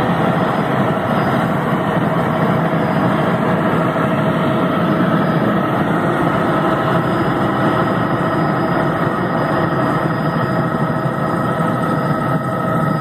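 Helicopter engine and rotor noise heard from inside the cabin in flight: a loud, steady drone with a constant whine running through it.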